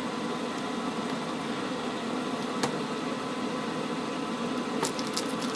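Steady room hum with a few faint ticks of fingernails picking at the sealed cellophane wrap of a small cardboard box: one tick about two and a half seconds in and a quick cluster near the end.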